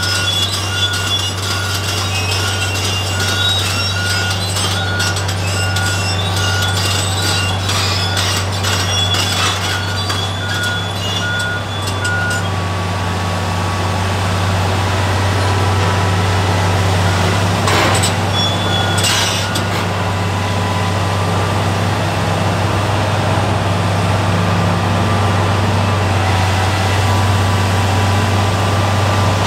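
Komatsu PC1250 demolition excavator's diesel engine running steadily with a low drone, while metal and concrete debris clink and scrape under the machine's work. A high pulsing beep sounds for roughly the first twelve seconds, and there are two short clatters of debris a little past halfway.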